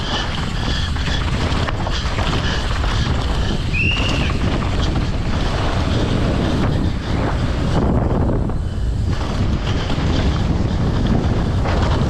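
Wind buffeting the microphone over the rumble and rattle of a downhill mountain bike ridden fast over rough ground, with a short high squeak about four seconds in.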